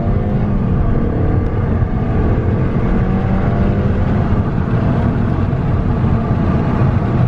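2006 Volkswagen Passat's 2.0-litre turbocharged four-cylinder engine under full-throttle acceleration. The engine's pitch rises, falls back at a gear change, and climbs again.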